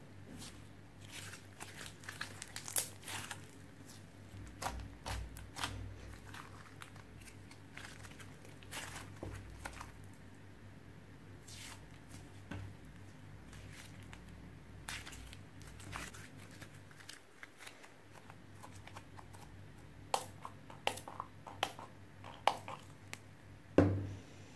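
Sticky slime being stretched, folded and kneaded by hand: scattered wet clicks and crackles as it pulls apart and presses together. A run of sharper pops comes near the end, then a single louder slap as the lump is pressed down onto the table.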